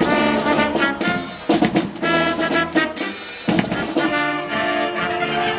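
Sea cadet marching band playing: brass and saxophones hold chords over bass drum and snare drum beats, with short breaks between phrases.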